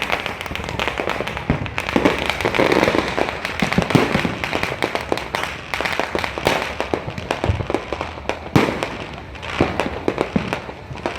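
Fireworks going off: a dense, irregular run of bangs and pops, one after another with little pause.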